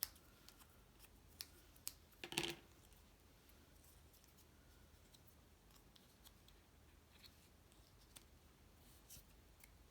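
Near silence broken by faint handling of cut cardstock pieces: a few small clicks and a brief rustle about two and a half seconds in, then only scattered faint ticks.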